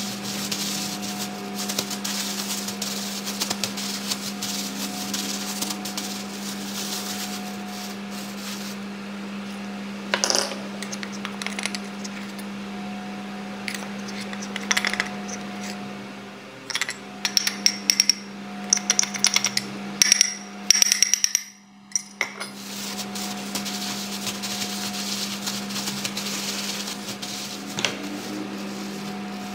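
Clear plastic bag crinkling and rustling as gloved hands rub and toss shrimp inside it to coat them in frying flour, with a run of sharp clicks and clinks from about ten seconds in to about twenty-two seconds in, as flour is spooned in with a metal spoon. A steady low hum runs underneath.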